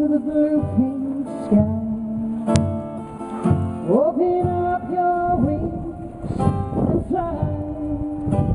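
A woman singing a slow song while strumming an acoustic guitar, holding long notes, one of which she slides up into about four seconds in.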